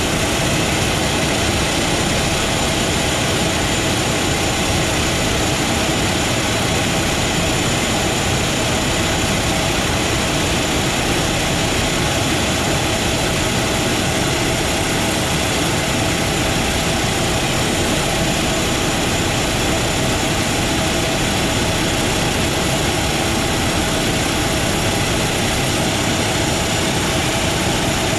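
Let L-410 Turbolet's two turboprop engines running steadily on the ground: an unbroken propeller drone with a high turbine whine.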